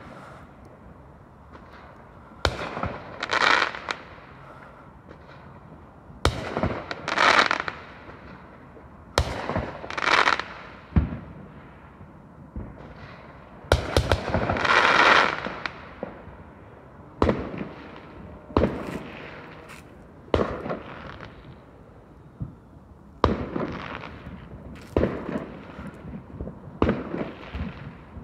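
Aerial fireworks going off: a string of sharp bangs a second or two apart, several trailing into longer bursts, the longest and loudest about halfway through.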